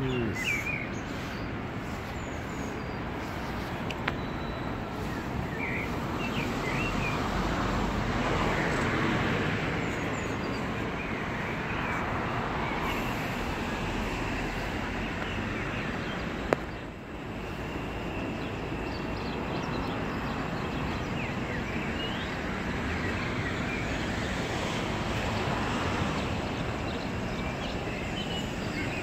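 Steady road traffic noise, with short bird chirps now and then and one sharp click a little past halfway.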